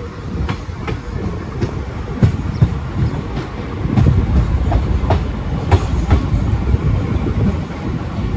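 Train running on the rails: a steady low rumble with irregular clacks of the wheels over rail joints, growing louder about halfway through.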